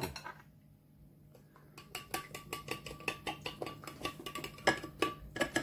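Metal spoon stirring a marinade in a small bowl, clinking quickly and repeatedly against the bowl. The stirring starts about two seconds in after a brief quiet.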